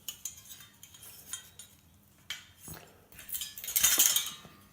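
Metal chandelier parts being handled, clinking and clattering against each other, with scattered clinks at first and a louder run of clatter about three and a half seconds in.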